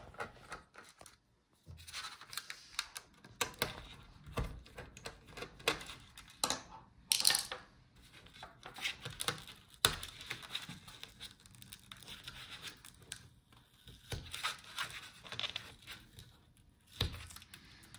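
WiFi antenna cables and their adhesive tape being peeled off a Lenovo ThinkPad E14 Gen 2's plastic LCD back cover: irregular scratchy tearing with small clicks and taps of fingers on the plastic. A louder peel comes about seven seconds in.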